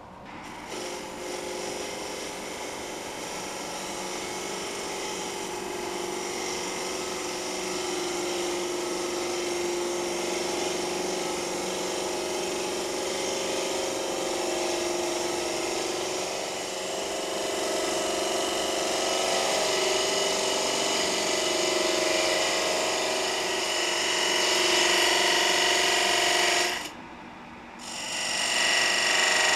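Laguna Revo 12/16 wood lathe spinning up about half a second in, then a gouge cutting a Russian olive bowl blank: a steady hiss of shavings over the lathe's hum. The cut breaks off for about a second near the end, then resumes.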